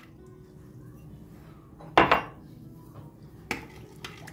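A sharp clink of kitchen dishware about two seconds in, followed by a softer knock about a second and a half later.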